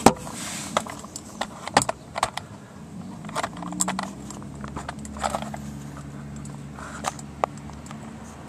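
Scattered sharp clicks and light metallic clinks of parts and the camera being handled under a car, the loudest knock right at the start, with a faint low steady hum coming in about three seconds in.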